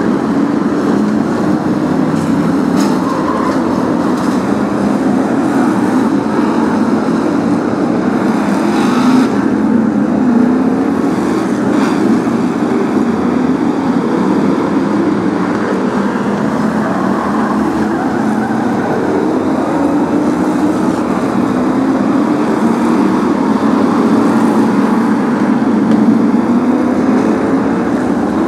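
A pack of V8 stock car engines running hard around the track in a continuous, dense engine din, with a couple of brief sharp knocks partway through.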